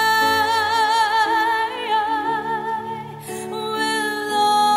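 Female singer holding a long, high note with vibrato that slides down about two seconds in, over sustained backing chords in a slow pop ballad.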